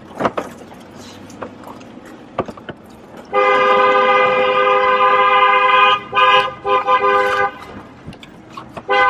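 Car horn honking for a celebratory drive-by. It starts about three seconds in with a long blast of nearly three seconds, gives two short toots, then starts another blast near the end.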